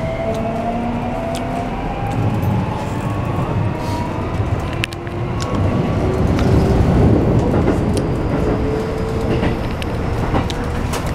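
Toyo Denki hybrid SiC VVVF inverter and traction motors of a Keikyu New 1000 series (1890 subseries) train accelerating, heard from inside the car. Several whining tones climb steadily in pitch over the rumble of wheels on rail, with sharp clicks now and then.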